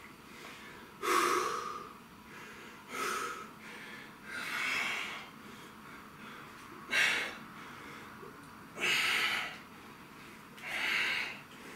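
A man's heavy, forceful breaths during dumbbell curls: six short, sharp breaths about two seconds apart, one with each rep.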